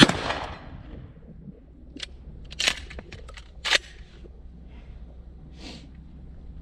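A Remington 870 pump-action shotgun fires one shot right at the start, its report fading over most of a second. A couple of seconds later come several sharp metallic clacks of the slide being worked and a shell being reloaded.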